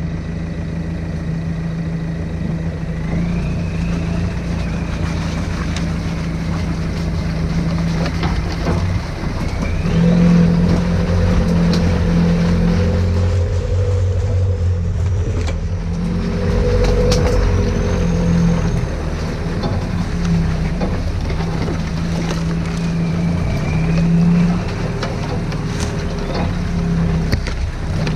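Suzuki Grand Vitara's 2.0 turbodiesel engine pulling at low speed on a muddy lane, its note rising and falling with the throttle. A high whistle glides up and down a few times, and there are occasional knocks as the truck rides over ruts.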